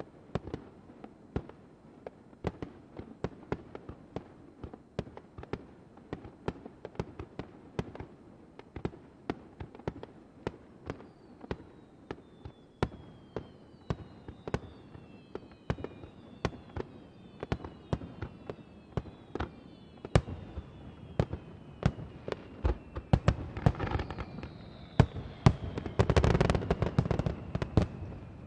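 Aerial fireworks shells bursting with sharp bangs, several a second, with a run of whistles falling in pitch through the middle. Near the end comes a dense, louder barrage of bangs and crackle.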